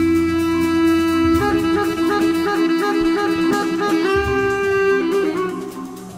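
Instrumental jazz-fusion music from a band of bass clarinet, guitar, marimba, double bass and percussion. A long held lead note gives way, about a second in, to a melody of short notes over light percussion. The music thins out briefly near the end.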